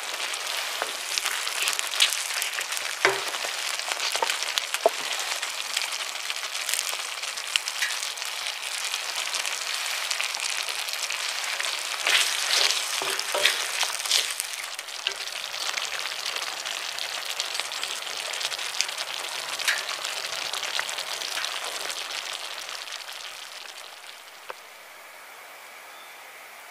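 Milky white sauce bubbling and sizzling in a cast-iron skillet on a wood stove, stirred with a wooden spoon that scrapes and knocks against the pan as the sauce thickens. The stirring clicks stop about 24 seconds in, leaving a quieter steady hiss.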